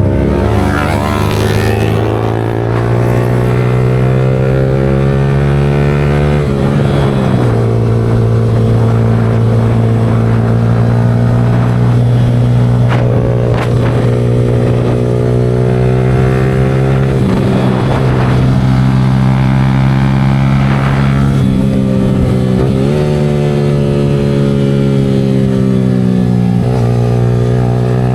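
Yamaha R15 V4's 155 cc single-cylinder engine, fitted with a Leo Vince aftermarket exhaust, running under way on a ride. The engine note holds steady for several seconds at a time and shifts sharply in pitch about five times, as with gear changes and throttle changes.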